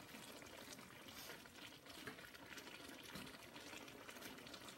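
Faint sizzling and simmering of okra, green beans and squash in a steaming wok, stirred with a wooden spatula that gives a few soft scrapes.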